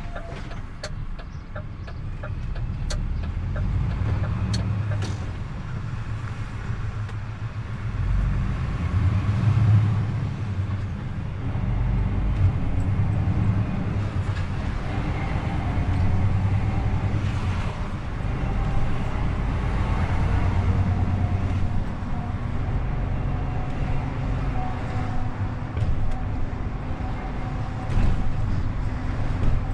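DAF XF truck's diesel engine running as the truck drives, with a low rumble that swells and eases as it pulls along, mixed with road noise.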